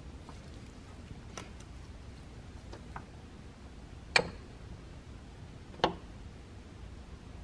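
A handful of short metal clicks and knocks, the two loudest about four and six seconds in, as the BMW S54 VANOS unit is worked against the camshaft hubs and its spline shafts are nudged into the hub gears.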